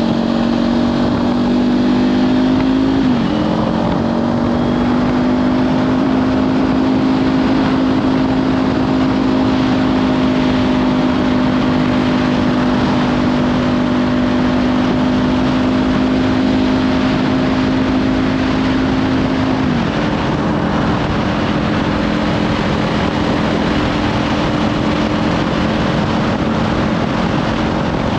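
Kawasaki Ninja 500's parallel-twin engine with a Leovince slip-on exhaust running at steady road speed, under heavy wind noise on the camera mic. The engine note dips briefly about three seconds in and steps down to a lower pitch about twenty seconds in.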